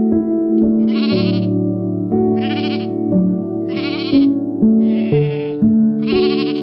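Sheep bleating five times, short wavering bleats about a second or so apart, over soft piano music.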